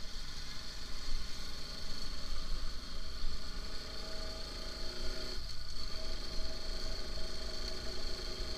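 Motorcycle engine running while riding, under low wind rumble on the microphone. Its note rises about four seconds in, breaks off briefly, then runs steady.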